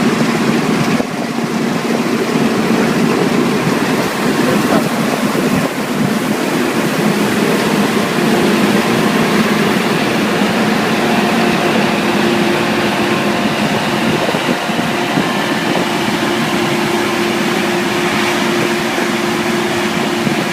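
Harvest machinery running at a steady working speed: a loud, continuous engine drone with a steady hum. A further hum tone joins about eight seconds in.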